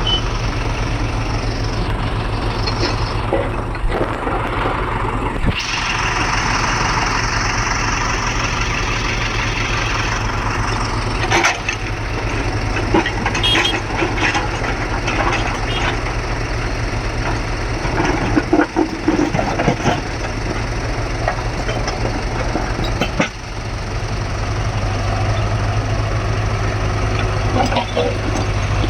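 Diesel engine of a JCB backhoe loader running steadily under load. A few short, sharp clatters come through it about midway and again a little later.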